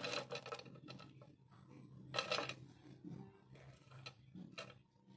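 Thin wax stick candles knocking and clacking against each other and a tabletop as a bundle of them is handled, in a few light clusters of taps.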